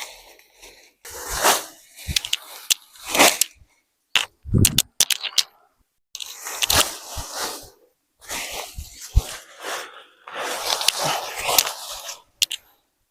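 Pigs feeding at close range: a run of short, noisy bursts with sharp clicks between them, breaking off abruptly several times.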